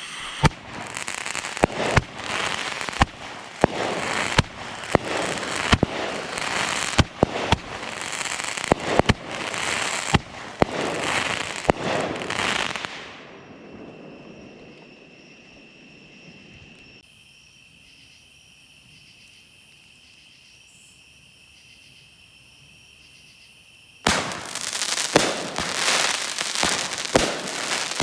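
A small 200 g consumer firework cake firing its shots, each a sharp report followed by dense crackling tails, for the first dozen seconds or so before it dies away. Then comes a lull with only a steady high insect trill. A few seconds before the end, the cake's reports and crackling start again abruptly.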